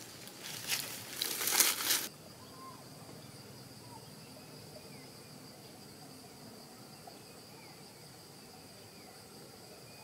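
Rustling and crackling for about two seconds, which cuts off abruptly. Then a steady high insect drone carries on with a few faint short chirps.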